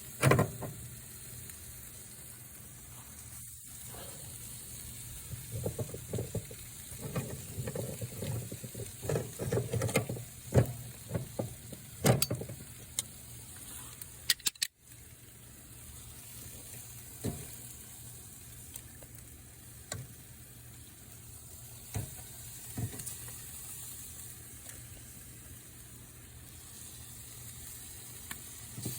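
Barbecue pig tails sizzling on a grill: a steady hiss with scattered clicks and knocks, busiest in the first half.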